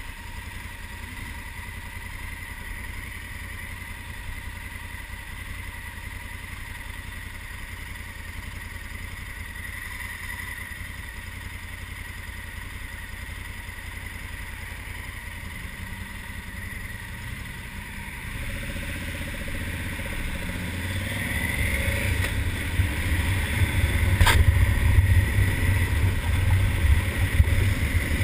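Motorcycle engine of a 2020 Honda Africa Twin, a parallel twin, idling steadily at a standstill. About two-thirds of the way in it revs up and grows louder as the bike pulls away, with a single sharp click a few seconds before the end.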